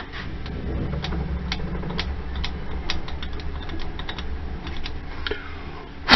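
Irregular light metallic clicks and taps from tools and metal parts being handled, over a steady low hum, with one sharp knock near the end.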